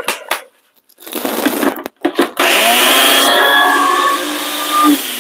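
Blender grinding pork rinds, Parmesan and almond flour into crumbs, its jar packed so full the lid barely closes. A few clicks, then the motor runs in short spurts about a second in and settles into a steady run from about two and a half seconds.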